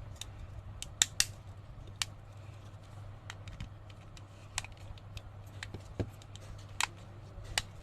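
Irregular small sharp clicks and taps of a Nokia 106 feature phone's parts and small tools being handled as the ringer speaker is fitted back into the phone, over a steady low hum.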